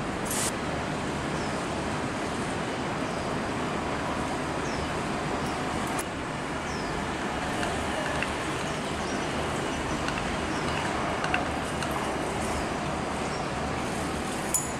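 Steady background rumble and hiss with a few light clicks of a metal teaspoon against a plastic paint palette, several of them close together near the end.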